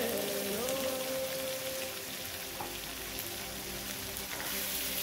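Ginger-garlic paste, sliced onions and whole spices sizzling steadily in hot oil in a wok.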